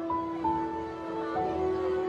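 Background music: a slow melody of held notes over a sustained lower note.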